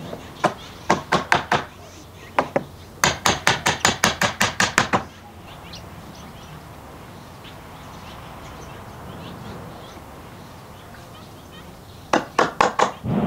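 Hammer tapping wooden mortise-and-tenon joints home: quick runs of sharp knocks, about six a second, through the first five seconds, then a pause, and another short run near the end.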